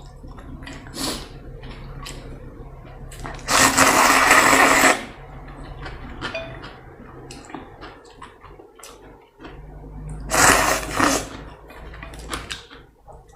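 Close-miked eating sounds: two long, loud slurps of noodles and broth, one about three and a half seconds in and one about ten seconds in, with chewing and small clicks between.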